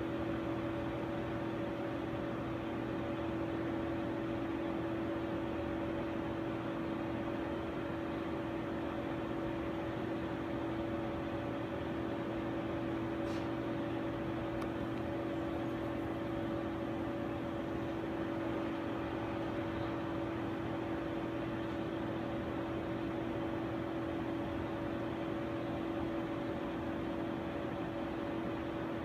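Steady machine hum: an even fan-like whir with a constant two-note drone that does not change.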